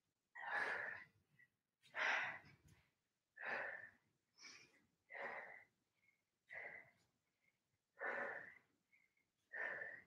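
A woman breathing hard from exertion: about eight audible breaths, spaced roughly a second and a half apart.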